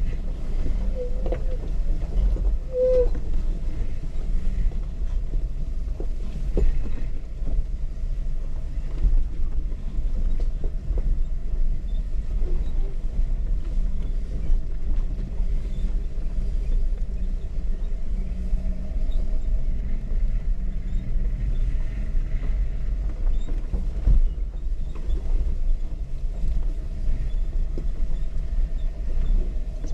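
A Jeep's engine running low and steady as it crawls along, with a deep rumble and a couple of faint knocks.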